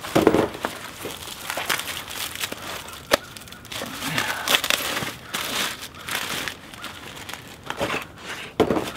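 Plastic and paper packaging crinkling and rustling as a winch shackle is unwrapped, with a few sharp clicks and knocks of handled parts.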